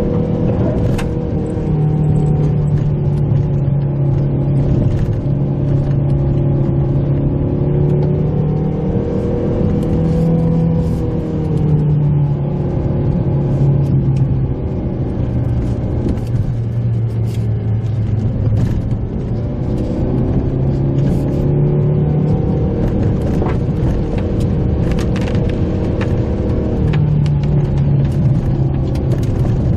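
A Mitsubishi Pajero Mini's engine running as the small SUV drives. The engine note holds steady, then shifts up and down in steps several times, with scattered clicks and knocks from the car over the road.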